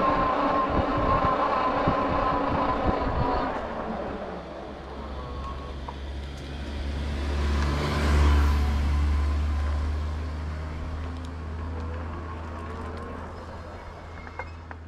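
Road traffic: an engine runs close by at first, with wind gusting on the microphone, then a motor vehicle passes, loudest about eight seconds in, and fades away.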